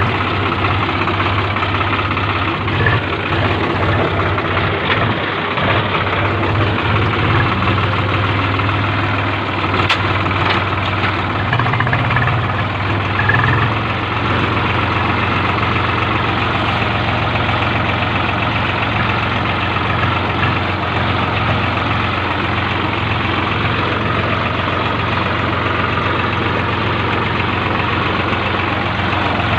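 Swaraj 834 XM tractor's three-cylinder diesel engine running steadily while the tractor is driven along, heard close up from the driver's seat. The engine note shifts slightly about halfway through.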